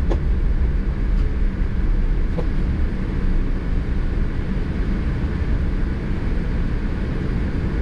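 Steady low rumble inside the cabin of a Boeing 787-10 rolling on the ground after landing: engine and wheel noise, with a few faint ticks.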